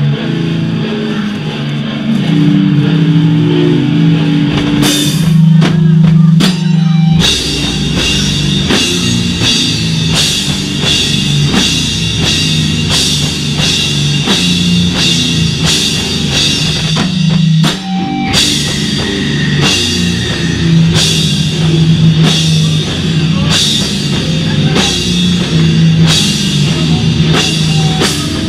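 Beatdown hardcore band playing live: heavy, low guitar riff over a drum kit. It breaks into stop-start hits about five to seven seconds in, then the drums strike about twice a second, with a brief stop near the two-thirds mark.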